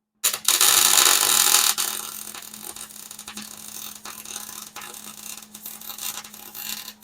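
Hobart wire-feed (MIG) welder's arc crackling as a weld bead is run. It starts suddenly, is loudest for the first second and a half, then fades to a lower crackle; the fading is an artefact of the microphone, not the welder.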